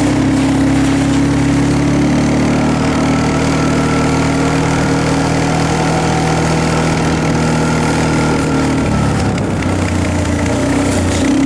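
Engine of the vehicle towing a sled through snow, running steadily, its pitch shifting about nine seconds in.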